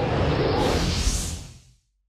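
Animation sound effect: a dense rushing whoosh that fades away about three-quarters of the way through.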